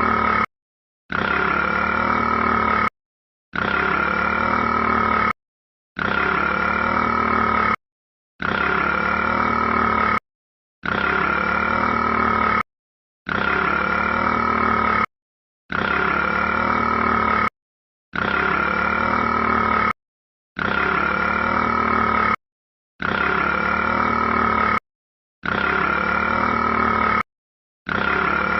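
The 'burping rat' meme sound: one long burp of about two seconds, looped over and over with a short silence between repeats, about every two and a half seconds.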